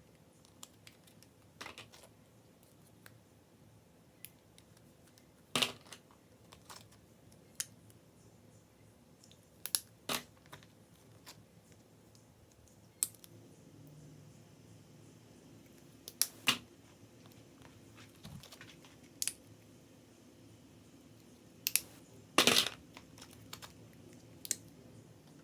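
Slime being handled, making irregular short clicks and pops, about a dozen spread out, the loudest near the end.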